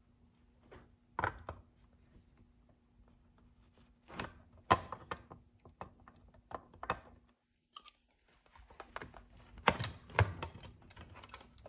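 Irregular light clicks and taps of small metal and plastic toy-train parts being handled and fitted together by hand, as the washer and the motor's fingers are lined up with the coal loader's conveyor belt. The loudest knocks come about halfway through and again near the end.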